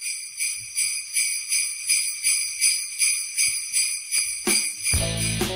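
Sleigh bells shaken in a steady rhythm, about three shakes a second, as the opening of a Christmas song. Near the end a band with bass comes in under the bells.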